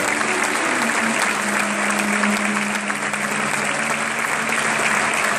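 Audience applauding steadily, with a low held tone sounding underneath for most of it.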